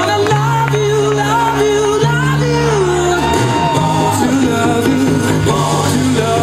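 Music with a singing voice over long held bass notes that change every second or two.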